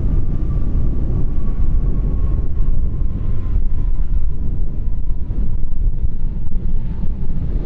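Embraer 195 airliner's twin GE CF34-10E turbofans rumbling on the landing rollout, with a faint high engine whine that slowly falls in pitch as the jet slows.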